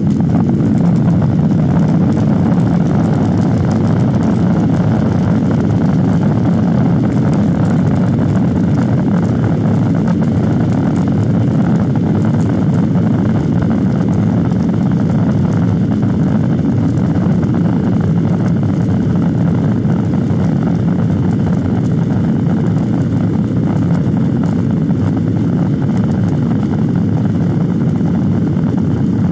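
Jet airliner's engines at takeoff thrust, heard inside the cabin during the takeoff roll, with the wheels rumbling on the runway: a loud, steady noise.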